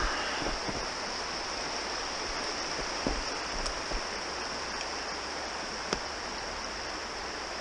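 Small snow-banked mountain trout stream rushing steadily over rocks, with two brief sharp clicks about three and six seconds in.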